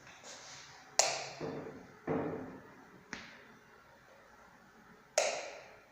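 Five sharp, irregularly spaced knocks or taps, each dying away quickly in a small hard-surfaced room; the loudest come about a second in and near the end.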